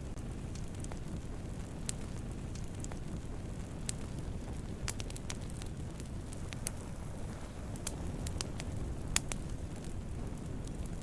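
Wood campfire burning with a steady low rumble and scattered sharp crackles and pops, the loudest pop a little past nine seconds in.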